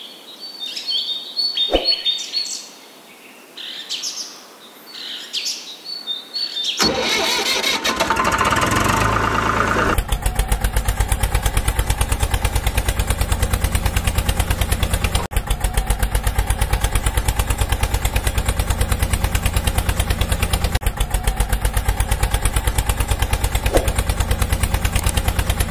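Birds chirping for the first several seconds. Then an engine starts up about seven seconds in and settles into steady running with a fast, even chug.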